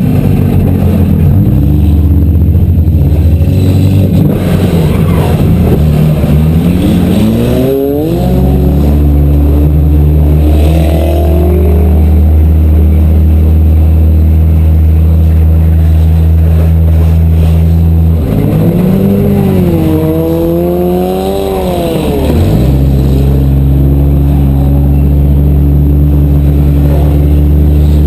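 Demolition derby car engine running loudly, revved up and down twice: once about a quarter of the way in and again past the middle.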